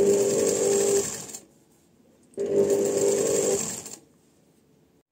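Sewing machine stitching in two runs of about a second and a half each, with a short pause between, then stopping. It is sewing in half of an invisible zipper.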